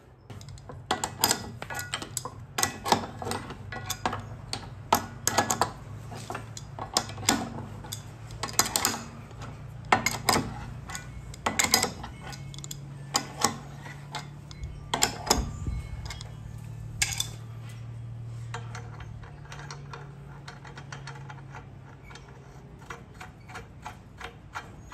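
Sharp metal clinks and ticks of an adjustable wrench being set on and turned against the nuts and bolts of an old hand-operated metal shear as it is bolted back together. The clicks come irregularly, about one or two a second, and grow sparser after about seventeen seconds.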